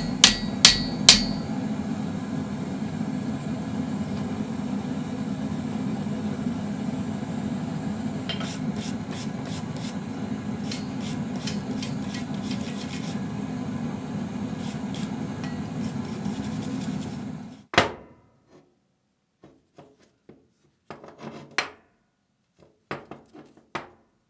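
Three or four ringing hammer blows on steel, over a steady low workshop hum with a hiss. The hum carries on with runs of light rapid clicks and taps, then cuts off suddenly about 18 seconds in. Scattered light knocks follow.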